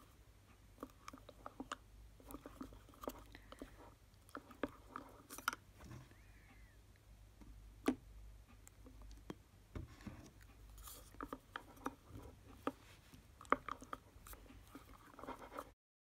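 Wooden craft stick stirring slime in a drinking glass as boric acid activator is mixed in: faint, irregular wet clicks and squelches of the thickening slime, with a few louder clicks. The sound cuts off just before the end.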